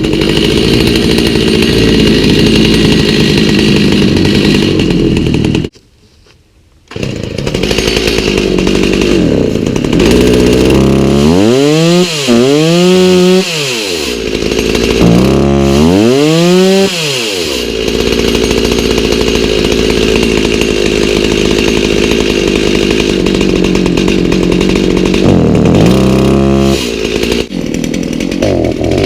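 Stihl MS290 two-stroke chainsaw running on a replacement aftermarket carburetor. It cuts out for about a second, comes back, and is revved up and back down twice. The owner finds it still not running quite right.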